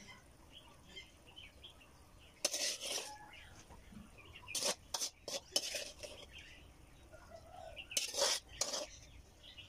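Metal ladle clattering and scraping against a ceramic plate as stir-fried cabbage is spooned onto it, in several short bursts with quiet gaps between.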